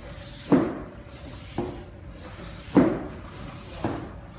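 Feet landing heavily on the floor during side-to-side steps, four thuds about a second apart over a faint steady hum.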